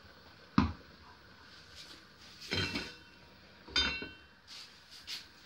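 An aluminium cooking pot and a non-stick frying pan knocking on a gas stove's metal grate as the pot is moved off the burner and the pan set down. There are three sharp knocks, the loudest about half a second in, and the last rings briefly like metal, followed by a few faint taps.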